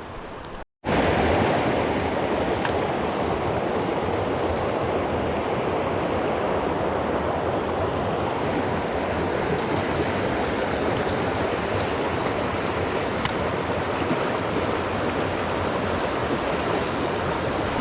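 Mountain stream water rushing steadily. The sound cuts out for a moment about a second in, then comes back louder and holds steady.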